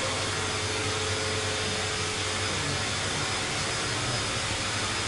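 Electric air blower running steadily, an even whooshing noise with a low hum: the constant-air fan that keeps an inflatable figure inflated.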